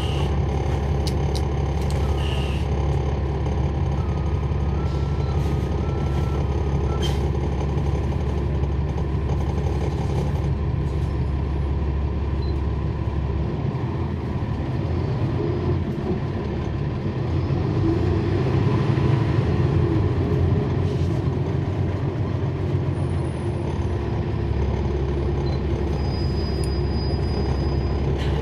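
Cabin sound of a 2012 NABI 40-SFW transit bus, its Cummins ISL9 inline-six diesel running with a steady low hum. The engine note changes about halfway through and grows louder for a few seconds before settling back. The ZF Ecolife automatic transmission is almost inaudible.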